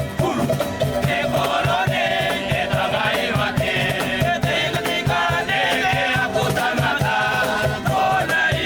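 Gospel music: a group of voices singing over a quick, steady drum beat.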